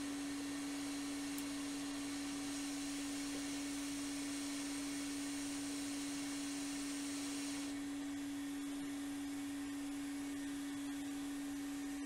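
RF4 RF-H2 hot air rework station blowing at 50% airspeed while desoldering a MOSFET: a steady pure hum with a hiss of air over it. The hiss drops away about eight seconds in, and the hum carries on.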